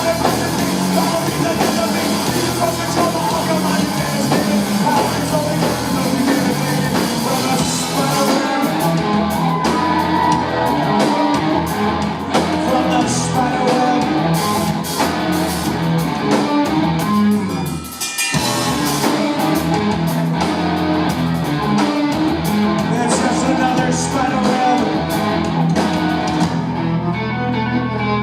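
Live rock band playing an instrumental passage: drum kit and electric guitars at full volume. About 18 seconds in the band cuts out for a moment and comes straight back in, and near the end the cymbals drop away, leaving a low chord ringing.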